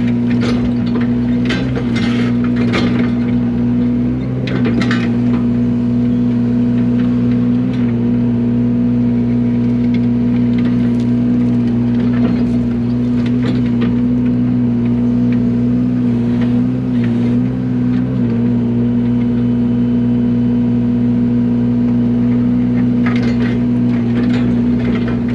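Yanmar mini excavator's diesel engine running at a steady speed while it works, with scattered short knocks in clusters near the start, around the middle and near the end.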